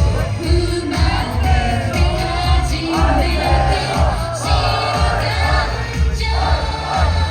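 Live Japanese pop song: singing over a band with a strong steady bass beat.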